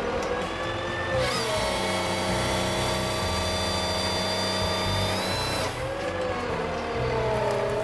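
Chainsaw-type small engine running at high revs. Its pitch rises about a second in, holds steady, then sags and recovers over the last two seconds, as a saw does when it bogs under load in wood.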